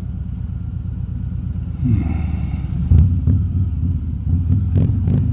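Harley-Davidson Road King Special's V-twin engine running at low speed in traffic, heard from a microphone inside the rider's helmet as a steady low rumble. A few sharp clicks come in the second half.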